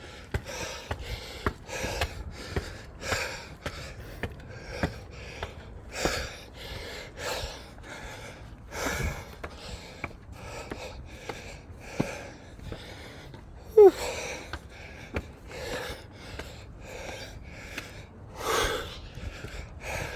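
A man panting hard, out of breath from climbing a long flight of stairs, at about two breaths a second. About two-thirds of the way through comes one short, loud vocal sound that falls in pitch.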